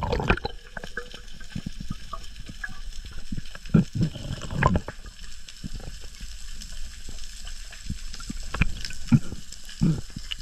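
Underwater sound picked up by a camera on a speargun: a steady hiss with irregular crackling clicks, and a few low thumps of water pushing against the camera as the diver swims.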